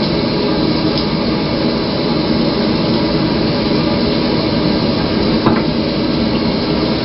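Steady, fairly loud background hum and hiss, with a faint click about five and a half seconds in.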